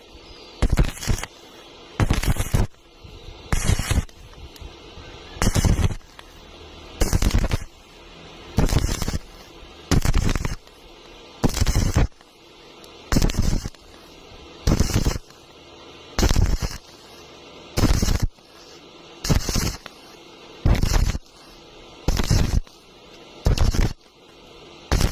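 Electric welding arc struck in short, crackling bursts of about half a second, repeating evenly about every one and a half seconds, with a low hum between them: stitch-style intermittent welding.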